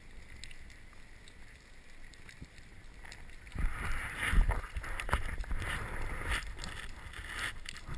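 Underwater sound picked up by a camera mounted on a speargun as a freediver swims along a rocky seabed. It starts as a faint hiss with scattered sharp clicks. About three and a half seconds in it turns into louder, uneven rushing and knocking as water moves past the housing.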